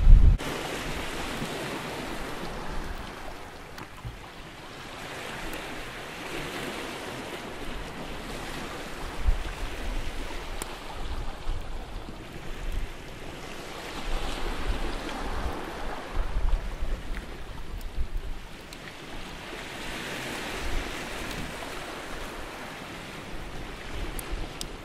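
Sea waves washing onto the shore, swelling and falling back about every four to five seconds, with low wind rumble on the microphone. A campfire gives an occasional faint crackle.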